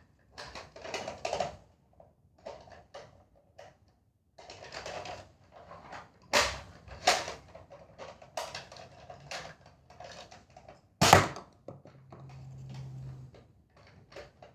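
Nerf toy blaster being handled and fired: a run of irregular clicks and knocks, with a few sharper snaps about six, seven and eleven seconds in, and a short low hum a little after twelve seconds.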